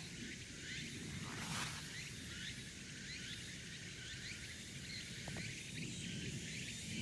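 Outdoor ambience: a steady low rumble under many faint, short, high chirps that keep repeating. There is a brief rustle about a second and a half in.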